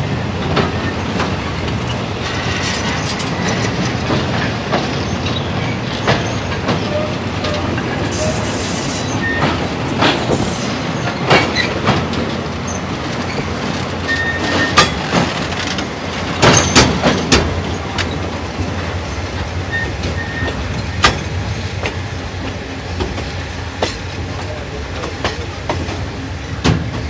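Passenger train running along the track, heard from beside an open carriage: a steady rumble of wheels on rails with irregular sharp clacks, several louder ones a little past the middle.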